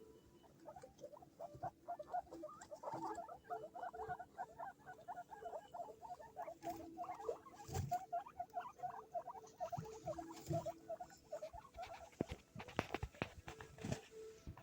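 Several baby guinea pigs squeaking in quick, overlapping short calls. Sharp knocks or taps join in near the end.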